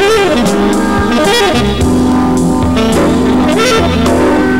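Background music: a lead melody that slides up and down over long held bass notes.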